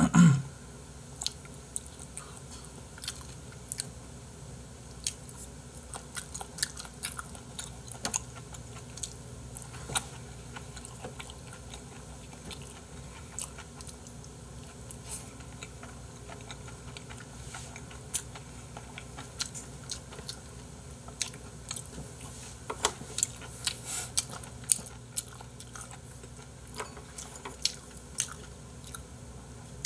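A person chewing and eating grilled meat and rice, with many small clicks and mouth sounds scattered irregularly throughout and chopsticks tapping on a plate.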